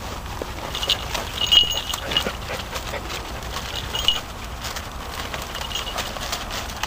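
A dachshund puppy pushing through bramble and dry leaves while hunting for a rabbit, its movements making a running crackle and rustle of twigs and leaves. A few short high-pitched notes come and go over the rustling.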